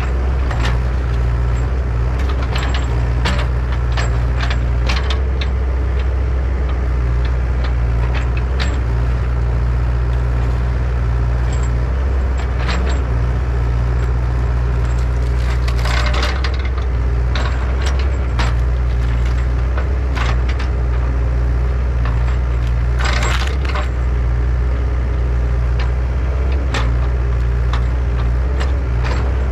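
Mini excavator engine running steadily under work, with frequent sharp clanks and knocks throughout and a couple of longer scraping, crackling bursts as the machine shoves the large tree.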